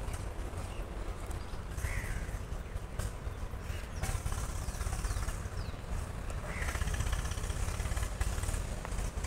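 Outdoor ambience with a steady low rumble and two short bird calls, one about two seconds in and another near seven seconds.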